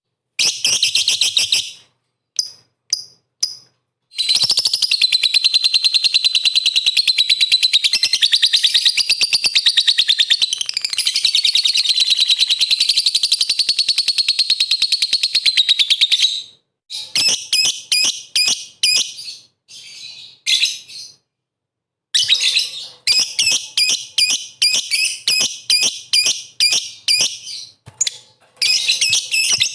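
Lovebird singing: a few short bursts of rapid chatter, then one long unbroken trill lasting about twelve seconds, followed by a string of short, choppy chattering phrases.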